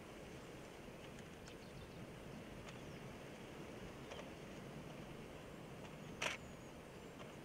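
Faint outdoor background hiss with a few soft ticks, and one short, sharp click about six seconds in.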